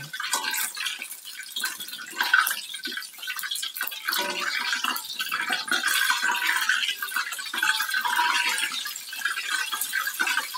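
Hot oil in a wok sizzling and crackling as fried chicken pieces drain in a wire spider strainer held over it, with a few light spatula contacts.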